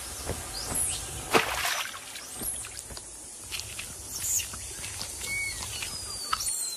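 Tropical forest ambience: short high bird chirps repeat about once a second over a low steady background, with scattered small clicks and a short noisy burst about a second and a half in.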